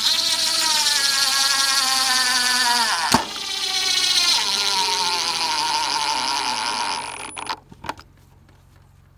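Power driver running a long screw into a wooden hive box corner: a steady motor whine that sinks in pitch as the screw bites, breaks briefly about three seconds in, then runs again until the screw seats flush about seven seconds in, followed by a few light clicks.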